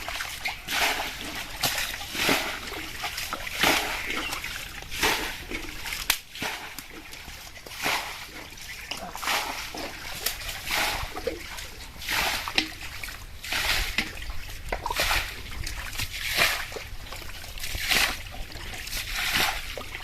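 Hands splashing and sloshing through shallow, muddy pond water, a short splash about once a second while groping for small fish.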